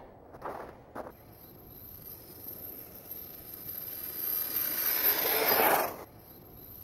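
Brushless electric motor and drivetrain of an Axial Wraith RC buggy running through snow. The sound builds to a loud burst of throttle about five seconds in, then cuts off sharply.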